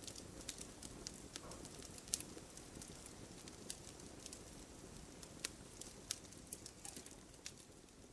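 Wood fire crackling: irregular sharp pops and snaps over a low, steady rumble of burning, with one louder crack about two seconds in.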